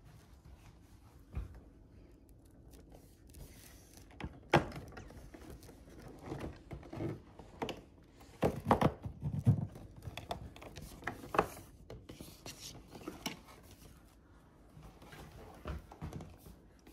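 Handling sounds of a cardboard advent calendar box and a small toy train: scattered taps, knocks and rubbing, the sharpest knock about four and a half seconds in and a cluster of knocks around eight to ten seconds.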